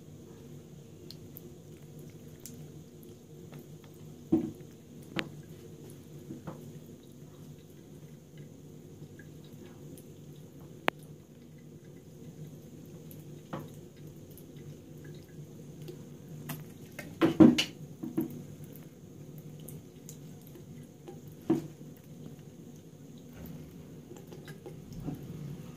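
Thin stream of tap water trickling steadily into a ceramic sink basin, broken by a few sharp clicks and knocks, the loudest a quick cluster about 17 seconds in.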